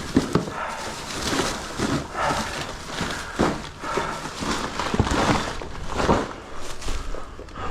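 A man breathing hard in rough swells about once a second, with footsteps and a few sharp knocks.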